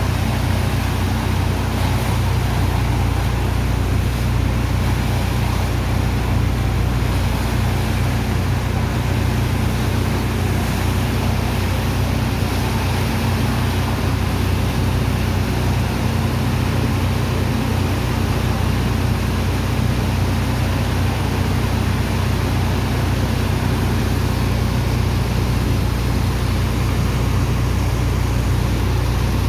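Sand dredger's diesel engine and pump running steadily: a deep, constant engine hum under a steady rushing noise of the water and sand being pumped.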